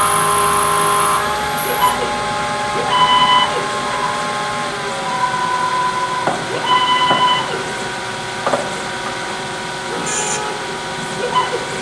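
Homemade CNC lathe machining hex brass bar stock: motors whining steadily in several tones that step in pitch as the machine moves, with a few short higher tones and brief hissing bursts.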